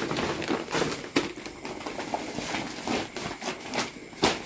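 Packaging of new clothes rustling and crinkling as the garments are handled out of a shopping bag, with irregular sharp crackles and small knocks.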